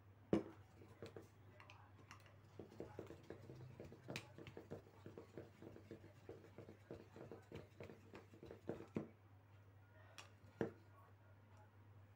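Pencil worked rapidly back and forth in an aluminium drink can's pull tab, making a run of faint quick clicks, about four a second, with a few sharper single clicks.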